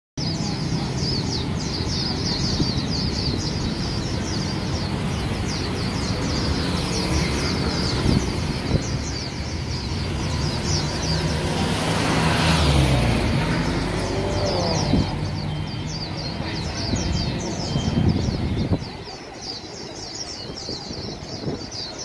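Caged Swinhoe's white-eyes singing, a dense run of fast, high twittering from several birds. A loud low traffic rumble runs underneath, swells about halfway through and drops away suddenly near the end.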